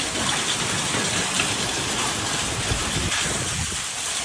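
Heavy hail falling onto paving and ground: a steady, dense hissing patter of many small impacts, with scattered low thumps.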